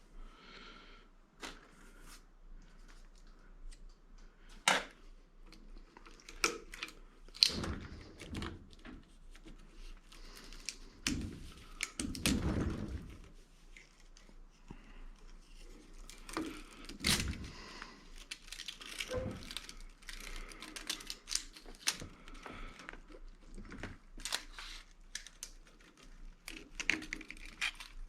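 Hand-stripping a copper electric motor: irregular clicks and knocks of tools and scrap, with tearing and crinkling as the windings and insulation are pulled apart. There are a few louder clatters in the first half.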